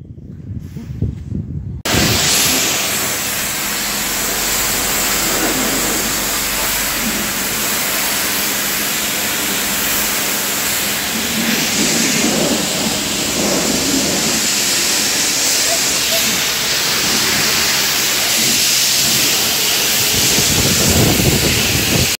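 High-pressure car-wash wand spraying water onto a car, a loud steady hiss that starts suddenly about two seconds in, with a faint steady low hum underneath.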